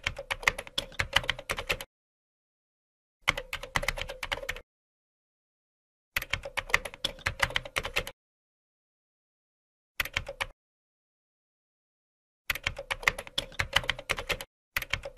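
Computer keyboard typing sound effect: runs of rapid key clicks, six bursts of about half a second to two seconds each, with dead silence between them, keeping time with text typing itself onto the screen.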